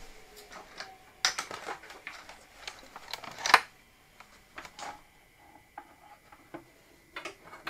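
Irregular clicks and knocks from plugging in and handling the keyboard of a Commodore PC 10-SD, with a cluster of clicks about a second in and the loudest knock about three and a half seconds in.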